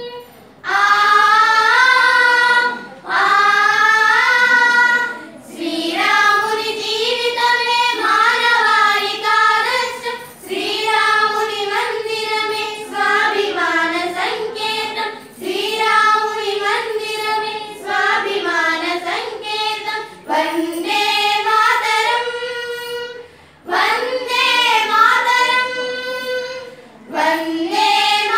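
A group of schoolgirls singing together without instruments, in phrases of a few seconds separated by short breaks for breath.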